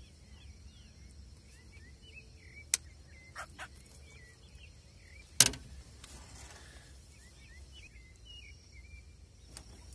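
Faint birds chirping over a low steady outdoor background, with a few sharp knocks. The loudest knock comes about five and a half seconds in.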